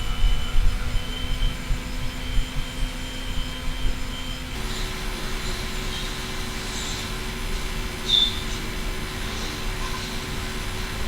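Electronic interference picked up by a computer microphone: a steady hum with a thin, broken high whine over low rumble. About halfway through the hum changes abruptly to a different set of tones, and short high chirps like birds cut in. The uploader wonders whether a newly installed smart meter is causing it.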